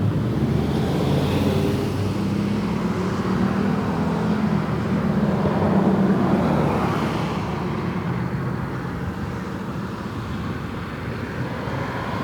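Road traffic noise: a motor vehicle's engine and tyre rumble, swelling to a peak about halfway and then easing off, as a vehicle passes.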